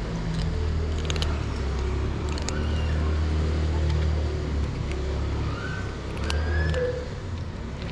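A cat crunching dry kibble close up: a few short, sharp crunches over a steady low rumble, which sounds like road traffic.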